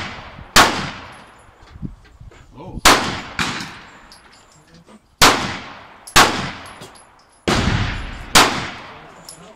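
Handgun shots fired one at a time at a slow, uneven pace: about seven shots in nine seconds, each sharp crack followed by a fading echo.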